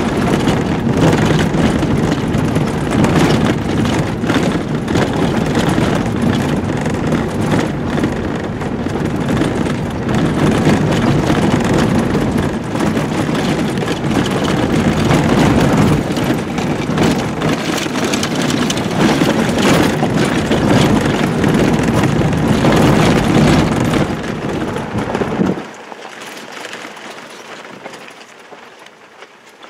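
Toyota vehicle driving on a rough dirt road: engine and road noise with frequent small knocks. It cuts off suddenly near the end, leaving a much quieter background.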